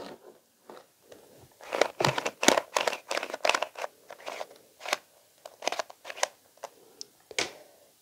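A well-used Dollar Tree Rubik's cube being turned quickly: the plastic layers give fast, irregular clicks and scrapes, mostly from about two seconds in.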